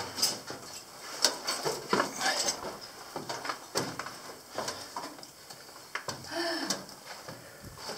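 Irregular knocks, taps and scrapes of someone climbing a wooden ladder and moving onto a timber landing: boots and hands striking the rungs and boards, with gear clinking. A brief grunt or breathy voice sound comes about six seconds in.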